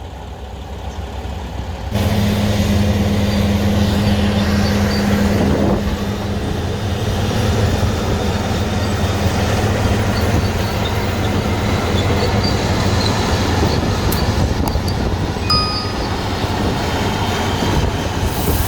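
Heavy diesel engine of a construction machine running steadily, a loud low drone that starts abruptly about two seconds in.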